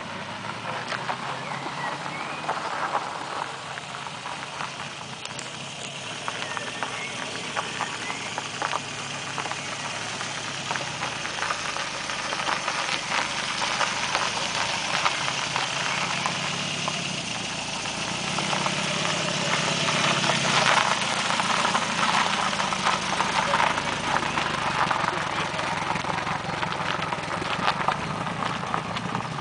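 Swallow Doretti's Triumph TR2 four-cylinder engine running at low speed as the car rolls slowly by, its tyres crunching on loose gravel. It grows louder in the second half as the car passes close.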